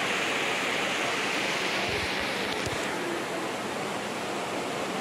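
Steady rush of river water running over rocky rapids, an even hiss. A couple of faint low bumps about two seconds in.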